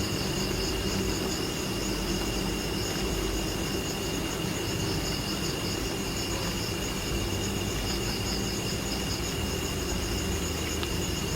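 Insects chirring steadily, a continuous high pulsing trill over a low hum.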